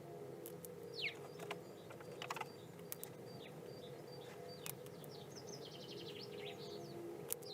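Small songbirds chirping: a quick falling call about a second in and a short rapid trill of falling notes past the middle, with scattered sharp clicks over a steady low hum.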